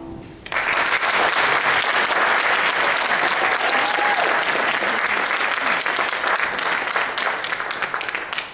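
The last piano chord dies away, then audience applause breaks out about half a second in, holds steady, and fades near the end.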